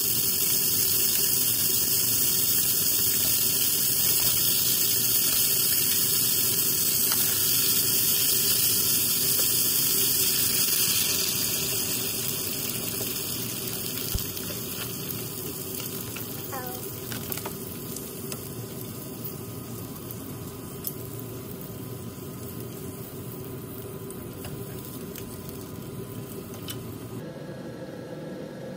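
Chicken thighs and radish sizzling in a hot pot, with water poured in from a bottle to start a braise. A loud steady hiss fades about eleven seconds in, leaving a quieter pot with a few light clicks.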